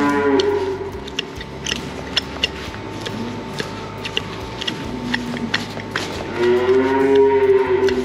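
A cow mooing: one call at the start, a short low one about five seconds in, and a longer moo near the end, with scattered sharp clicks and knocks in between.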